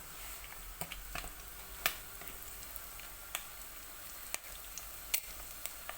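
Dough-wrapped sausage rolls (dog rolls) frying in hot oil: a steady sizzle with irregular sharp pops and crackles.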